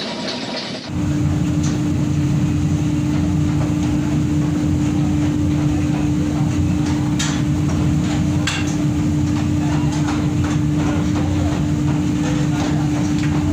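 Forging-shop machinery noise: a steady machine hum with one constant tone over a low rumble, broken by scattered metallic knocks and clanks. A short bit of music cuts off about a second in.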